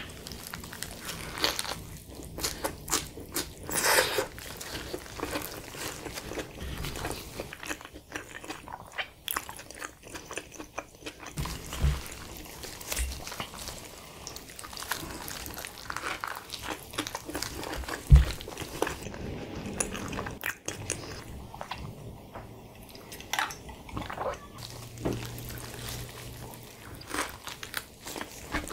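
Biting into and chewing a spicy chicken wrap in a flour tortilla with lettuce: irregular soft crunches and wet mouth clicks, with a couple of louder low thumps.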